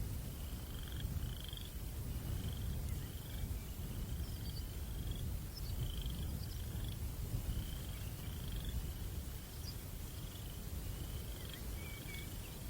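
Night ambience: a steady low rumble of breeze with a small creature's short chirping call repeating regularly, about three times every two seconds, and a few fainter higher chirps.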